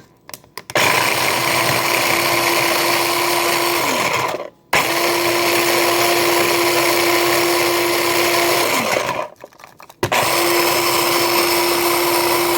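Food processor motor running in three pulses of a few seconds each, chopping hot Cheeto puffs into crumbs. The first two pulses wind down in pitch as the motor is let go.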